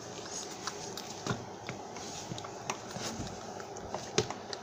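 Hand screwdriver turning a screw into the plastic body of a 24-volt kids' ride-on ATV: quiet, irregular small clicks and scrapes of the screwdriver tip and plastic.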